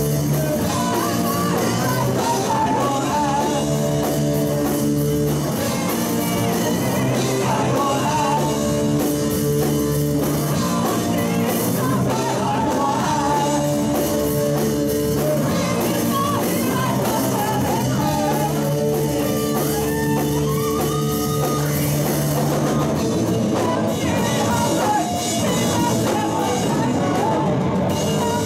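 Rock band playing live: a singer over guitars and a drum kit, at a steady, full level.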